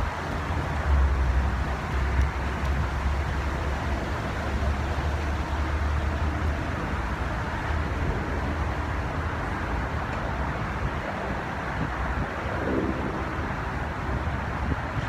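Steady outdoor city background noise: a low rumble with a hiss over it, the rumble heaviest in the first half.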